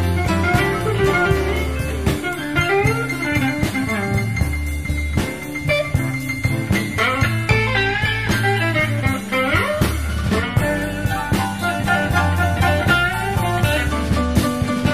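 Chicago blues band playing an instrumental passage of a slow blues: electric guitar lead with bent, sliding notes over a walking bass line and drums.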